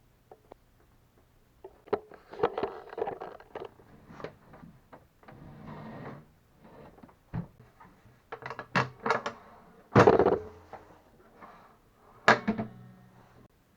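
Irregular knocks, clunks and short scrapes of things being handled and set down on a hard surface, with a softer rubbing sound about six seconds in and the loudest thud about ten seconds in.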